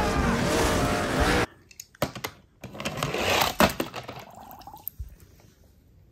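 Film soundtrack audio that cuts off abruptly about a second and a half in. Then a toy car goes into a plastic tub of water: a splash and sloshing with a few sharp knocks against the plastic.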